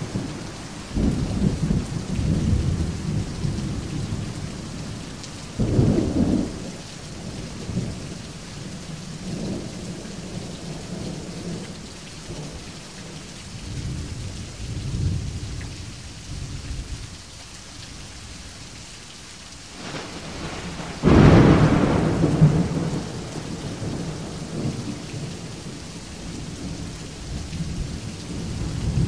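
Steady rain with rolling thunder. Low rumbles come in the first few seconds and again about six seconds in. A louder, sharper thunderclap comes about twenty-one seconds in and dies away over a few seconds.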